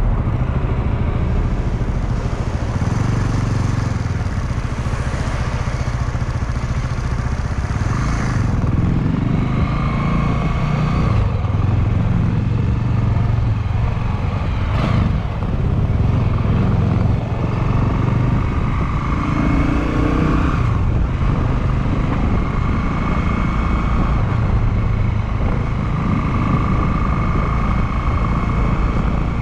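Honda GB250 Clubman's single-cylinder four-stroke engine running under way. Its note changes several times as the rider speeds up and eases off, with one sharp click about halfway through.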